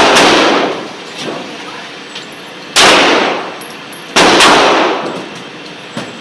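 Three pistol shots from a Glock at an indoor range: one right at the start, then two more about three seconds in, a second and a half apart. Each shot rings on for about a second in the range's echo.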